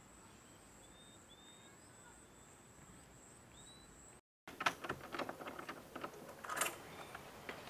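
Faint outdoor ambience with a few short, high bird chirps over a steady high whine. After a brief cut to silence about four seconds in, a run of clicks and knocks as a door is opened and people step into a room.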